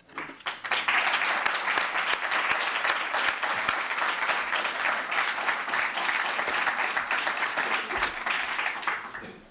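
Audience applauding, many hands clapping at once; it builds up just after the start and dies away near the end.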